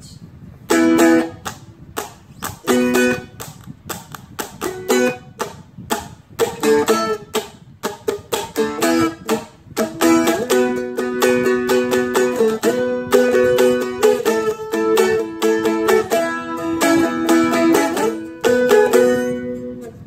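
Seagull Merlin M4 four-string dulcimer-style instrument strummed. It plays separate single chord hits with gaps between them, then switches about halfway through to denser, steady strumming of the same chords.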